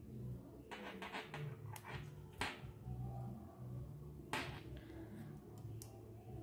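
Hands handling a small crocheted amigurumi keychain and working yarn with a crochet hook: soft rustling and a few sharp clicks, a cluster about a second in and the loudest single clicks about two and a half and four and a half seconds in.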